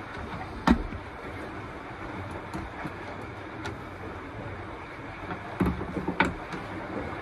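Sharp plastic knocks and clicks from a handheld multimeter being set down and its test leads handled: one knock about a second in and a quick cluster of smaller clicks near the end, over a steady outdoor hiss and rumble.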